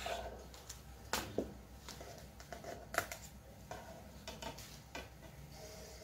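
Faint handling of a CD album's packaging: scattered light clicks and taps as the booklet and case are moved and a disc is taken from its tray, the sharpest about one, one and a half and three seconds in.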